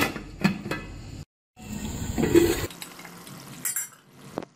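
An aluminium lid is set down on a cooking pot with a couple of clicks. After a brief dropout comes a watery bubbling of chicken and tomatoes cooking in oil and their juices, with a few sharp clicks near the end.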